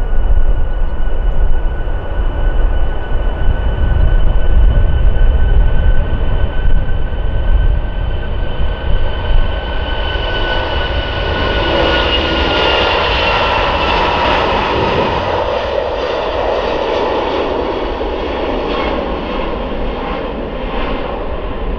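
Four Rolls-Royce Trent 500 turbofans of an Airbus A340-600 at takeoff thrust, the airliner accelerating down the runway. A steady high whine over a deep rumble, the whine dipping slightly in pitch and the roar building about halfway through as the jet goes past.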